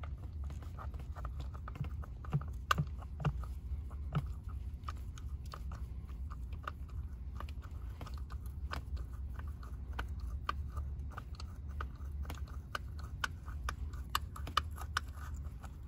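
Socket ratchet clicking in short, irregular runs as a bolt is run in by hand, with scattered small metallic taps, over a low steady hum.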